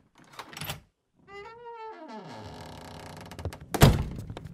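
A few footsteps on wooden boards, then a long creak of a wooden door on its hinges, falling in pitch and then holding steady, ended by a heavy thud as the door shuts near the end.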